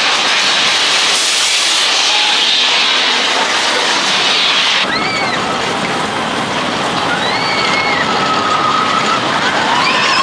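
Roller coaster train running along its track: a steady rushing noise, then, after a sudden change about five seconds in, several high squeals that rise and fall.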